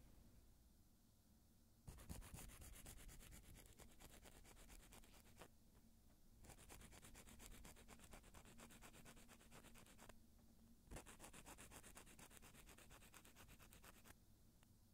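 A nail file rasping against the tips of natural fingernails in quick back-and-forth strokes, shaping the nails. It comes in three quiet runs of rapid strokes with short pauses between them.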